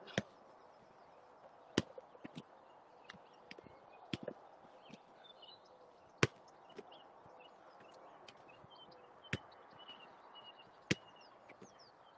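A football being kicked back and forth in a quick passing drill: sharp knocks of foot on ball, one every second or two.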